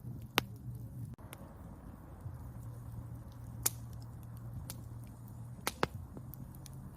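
Campfire of burning wood crackling, with sharp pops: a loud one about half a second in, another past the middle, and two in quick succession near the end, with fainter ticks between, over a low steady rumble.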